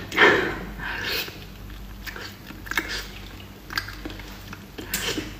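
Close-up eating sounds of cooked eel: a loud burst at the start as the fish is pulled apart and bitten, then chewing with short wet smacks and clicks about once a second.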